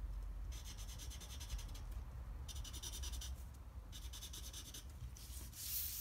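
Felt-tip marker scribbling on paper: three spells of quick scratchy strokes, each about a second long. Near the end the sheet of paper slides across the table.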